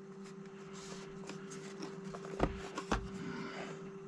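Light handling noises of boxed LiPo battery packs: two soft knocks about two and a half and three seconds in, with faint rustling, over a steady low hum.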